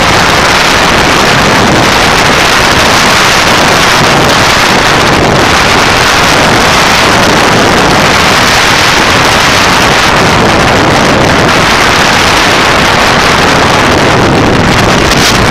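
Loud, steady wind rush over the microphone of a camera mounted on a moving motorcycle, with road and engine noise buried under it.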